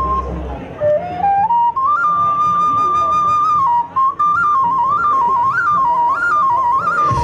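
A flute-like wind instrument playing a solo melody: a rising run of notes about a second in, a long held note, then a quick wavering, ornamented phrase. A low backing accompaniment drops out early on and comes back at the very end.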